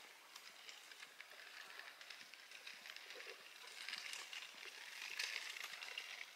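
Faint outdoor rustling with many scattered small crackles and clicks, swelling a little past the middle.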